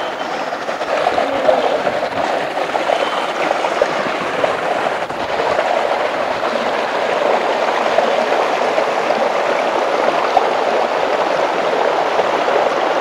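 Shallow rocky stream running steadily over stones, an even rush of water.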